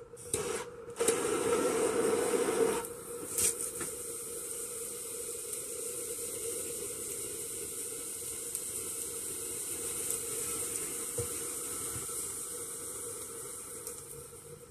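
Thermite of iron oxide powder and aluminium burning in a small crucible: a loud hiss for the first few seconds as it is lit with a handheld gas torch, a single pop about three and a half seconds in, then a steady hiss for about ten seconds that fades near the end.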